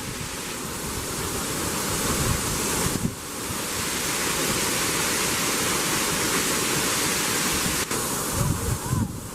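Steady rushing roar of a waterfall, dipping briefly about three seconds in.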